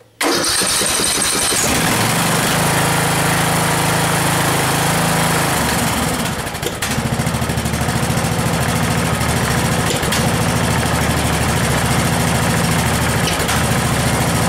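Briggs & Stratton Intek engine on a Craftsman DYT4000 lawn tractor cold-starting without choke and firing right up, with a brief whir as it catches. It then runs steadily; around six seconds in the engine note dips and shifts, then settles into steady running.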